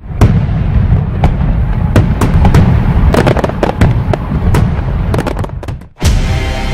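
Fireworks crackling and banging: many sharp pops over a heavy low rumble. They stop about six seconds in, and a sustained electronic music chord starts.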